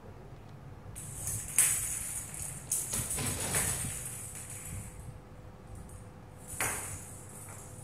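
Jingle-bell toy ball jingling and rattling as a cat bats it across a tile floor, with a few sharp knocks of the ball striking the tiles. There is one long jangling stretch starting about a second in, and a short burst near the end.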